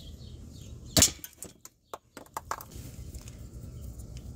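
Plastic push-pin retaining clip snapping out under a pry tool: one sharp crack about a second in, followed by a few lighter plastic clicks.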